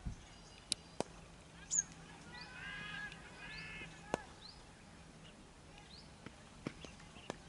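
Quiet outdoor cricket-ground ambience with a few single sharp clicks and knocks, one of them near the end, and a faint high wavering call in the middle.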